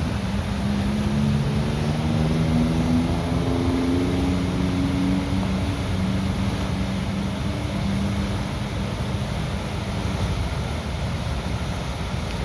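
Water rushing out of a river dam's sluice gates in a steady, continuous noise. A passing motor vehicle's engine runs over it, its pitch rising through the first few seconds before fading out about halfway through.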